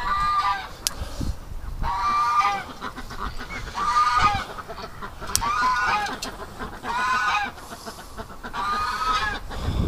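A goose honking over and over, about seven calls at a steady pace, each about half a second long. Two sharp clicks fall between the calls.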